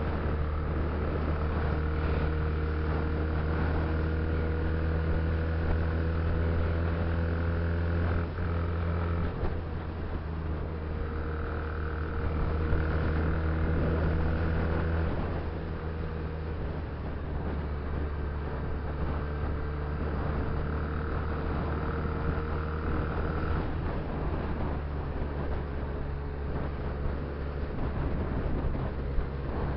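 Benelli 300cc parallel-twin motorcycle engine running on the move at a steady cruising note. Its pitch and loudness shift a few times as the throttle and gears change.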